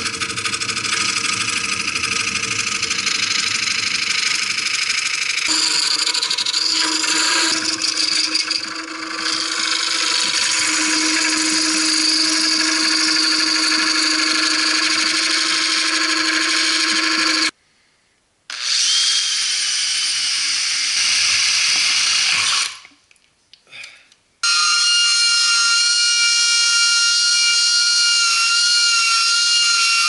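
Wood lathe spinning a segmented wood blank while a gouge cuts it: a continuous hissing cut over a steady motor hum. It breaks off twice for short gaps. For the last few seconds a flexible-shaft rotary tool runs with a steady high whine.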